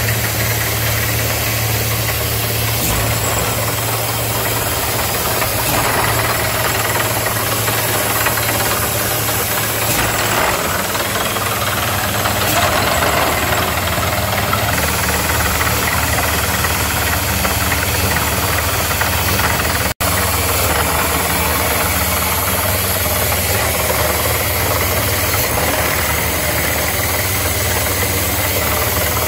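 Borewell drilling rig running steadily: engine noise with a knocking, over a broad hiss of air and water blowing out of the borehole as the bore yields water. The sound cuts out for an instant about two-thirds of the way through.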